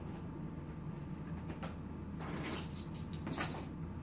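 Handbags being picked up and moved: two short bouts of handling noise, about two and three seconds in, over a low steady hum.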